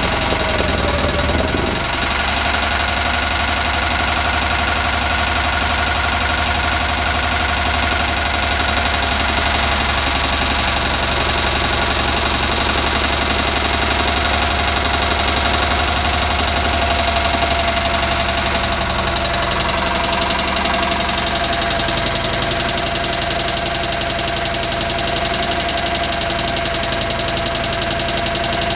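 Onan CCK two-cylinder air-cooled engine running steadily, with a fast, regular knocking or tapping in its running.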